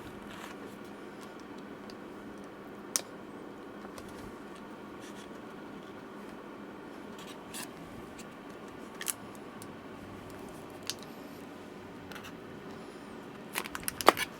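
Scattered sharp clicks and light scrapes of hand tools prying at a laptop's glued-in battery cells, over a steady background hum, with a quick cluster of clicks near the end.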